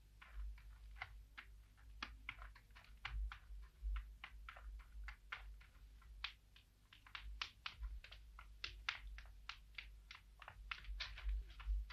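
Faint, irregular light clicking, several ticks a second, over a low rumble.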